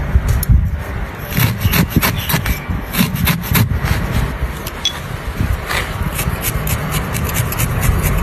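Felting needle jabbing repeatedly into wool, with fingers rubbing the fibres: a run of short, irregular scratchy strokes, several a second.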